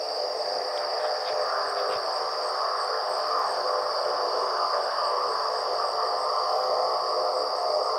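Night insects chirring steadily in grass, with a higher cricket chirp repeating at an even rate over the top.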